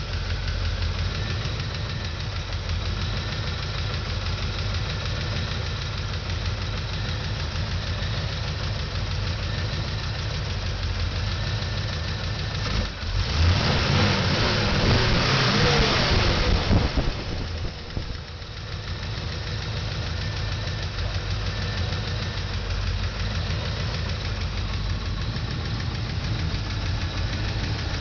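Chevy 350 small-block V8 idling steadily, revved once for a few seconds about halfway through before settling back to idle.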